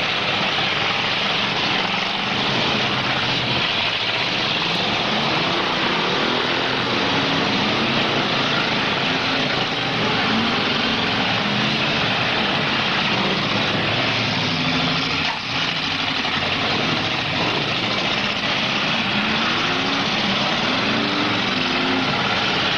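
Several V8 demolition derby cars running and revving at once, their engine pitch rising and falling over and over under a dense wash of engine and exhaust noise.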